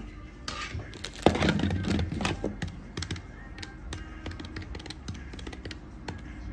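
Light clicks and taps of small items being handled and set down on a counter: scissors and plastic-packed accessories, with one sharper knock about a second in. Background music plays underneath.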